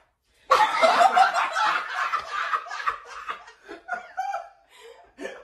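People laughing loudly, starting suddenly about half a second in and trailing off into short scattered bursts of laughter toward the end.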